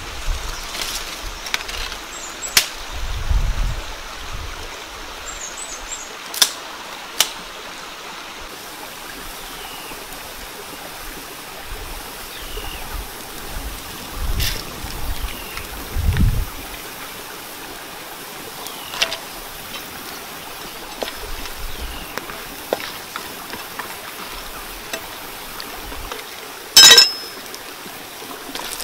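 Steady rush of a flowing stream, with scattered small clicks and knocks and one brief loud burst near the end.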